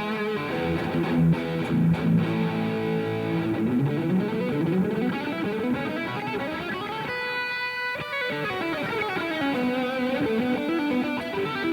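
Electric guitar played through a Revv G3 preamp/distortion pedal set to its blue channel: low riffing at first, then a run of notes climbing up to a single note held for about a second, about seven seconds in, followed by a winding lead line.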